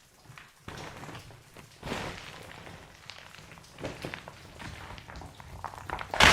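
Rockfall in a mine tunnel: scattered stones and pebbles knocking and clattering down, gathering pace, until a heavy crash of falling rock breaks in right at the end.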